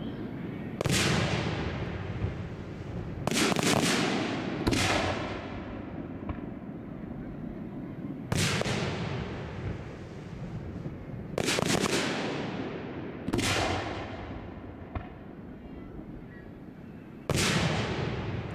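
Aerial firework shells bursting overhead: about seven loud booms at irregular intervals, each trailing off in a long rolling echo.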